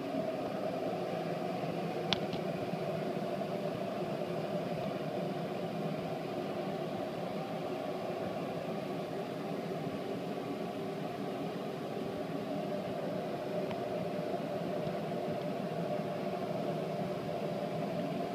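Steady mechanical hum with a single small click about two seconds in.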